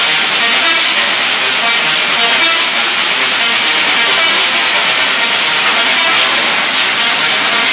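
Musical Tesla coil playing notes sent from a synthesizer and drum machine: its sparks give a loud, buzzing, distorted electric tone.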